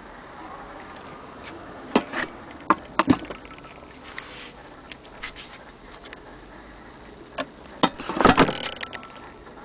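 Irregular metallic clicks and knocks from an antique hand-crank sewing machine's mechanism as it is handled. A few sharp clicks come about two to three seconds in, and a louder cluster near the end.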